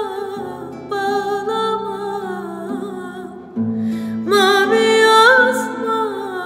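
A woman sings a slow Turkish folk song in long, wavering held notes over a sustained low instrumental accompaniment. A short pause comes about three and a half seconds in, and the next phrase climbs higher and louder.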